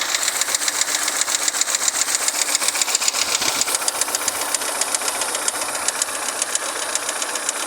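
2012 Fiat Siena Tetrafuel engine running with a rapid, even ticking like a pen tapping. The owner puts the tick down to valve-clearance shims in the cylinder head that are out of spec, not to a faulty tappet.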